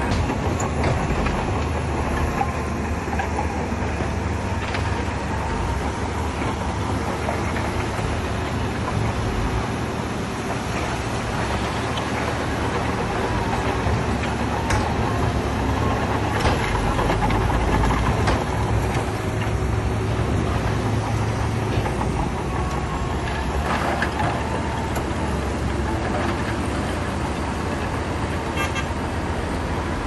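Heavy diesel earthmoving machinery, a bulldozer and dump truck, running steadily under load, with a few short knocks now and then.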